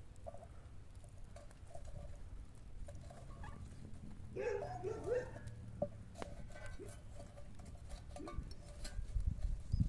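Wood campfire crackling under a frying pan, with scattered small pops over a low rumble. About halfway through comes a brief wavering tone, and near the end a few dull low knocks.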